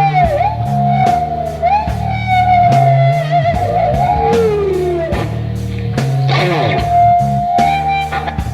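Live acid-rock music: an electric guitar plays a lead of long sustained notes that bend and waver in pitch, with a falling glide about halfway through and a swooping bend near the end. Drums and bass keep time underneath.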